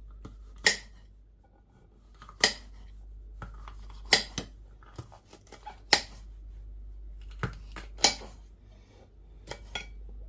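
Kitchen knife dicing a pepper on a chopping board: separate sharp chops at an irregular pace, roughly one every second or so, with a quick pair about four seconds in and another near the end.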